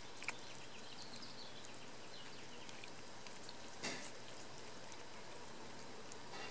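Cat eating wet canned pâté cat food from a glass dish: soft, wet smacking and chewing clicks, scattered and irregular, with a sharper click about four seconds in.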